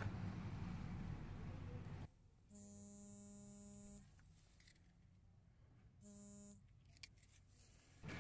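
A faint steady electrical-sounding buzz, about a second and a half long, comes in about two and a half seconds in and again briefly about six seconds in. A faint background hiss drops away about two seconds in, and there is a single soft click near the end.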